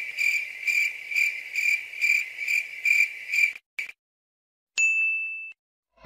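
Cricket sound effect: a high, steady chirping that pulses about twice a second for a few seconds and then stops. About a second later comes a single short bell-like ding.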